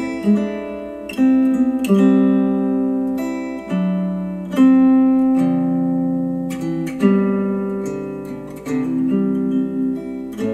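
Acoustic guitar music played through KEF Q350 bookshelf speakers: plucked notes and chords that ring out and fade, a new one every second or two.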